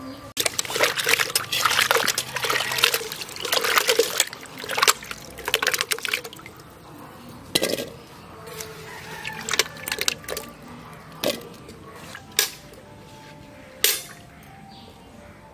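Cut potato pieces being washed by hand in water in an aluminium pot: splashing and sloshing for about six seconds, then the water is poured off. A few separate knocks follow in the second half.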